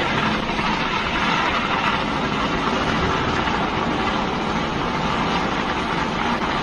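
Firecrackers going off in a dense, continuous crackle, steady and loud throughout.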